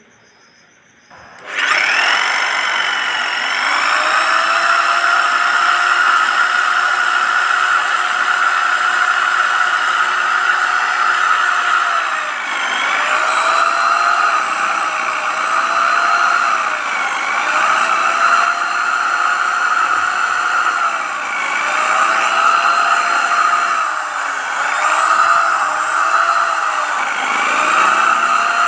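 Golden Bullet 750 W electric drill switched on about a second in, its motor running at speed with a cylindrical grinding stone in the chuck. From about halfway on, its pitch dips and recovers again and again, roughly every two seconds, as the motor slows under the load of a knife blade and then a piece of wood pressed against the stone.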